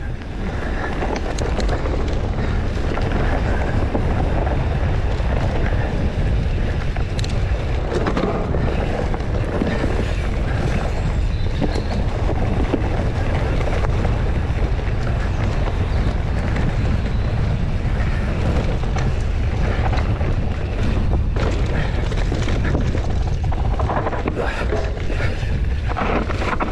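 Mountain bike ridden down a dirt trail: a steady rush of wind on the microphone and tyre noise, with many short clicks and knocks from the bike over bumps.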